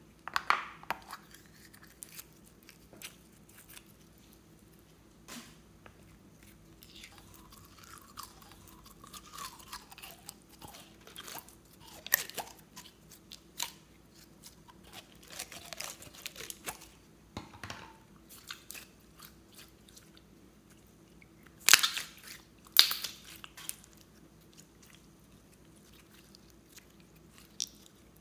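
Store-bought slime being handled by hand with close, crunchy crackles and sticky clicks. A foil-sealed plastic slime jar is opened near the start, then the slime is pulled out and stretched. The loudest pops come as two sharp bursts about 22 and 23 seconds in.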